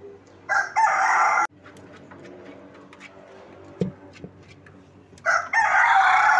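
Rooster crowing twice: the first crow cuts off suddenly after about a second, and the second, about five seconds in, runs for about two seconds and falls in pitch at its end. A single soft knock comes between them.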